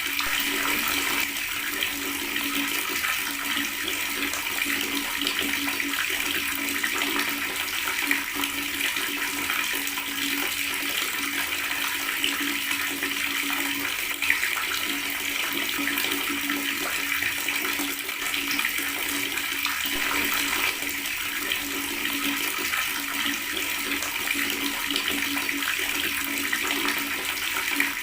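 Water tap running and gurgling, a steady stream of water that does not change.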